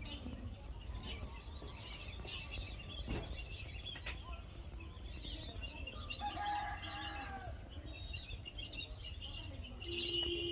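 A flock of small birds chirping and twittering continuously, with one longer, lower call about six seconds in, over a steady low rumble.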